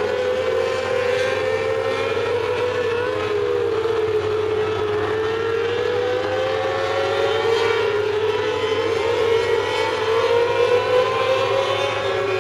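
Several mini sprint car engines running hard as a pack laps a dirt oval, their high whine wavering up and down in pitch as the cars go through the turns and down the straights.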